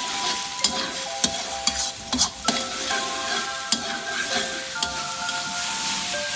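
Metal spatula scraping and clicking against a wok as eggs are stir-fried, with the eggs sizzling in hot oil. Background music plays throughout.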